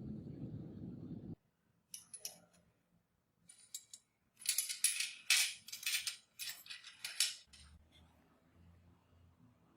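A steady low hum that stops abruptly about a second in, followed by a run of light metallic clicks and scrapes from small metal parts being handled.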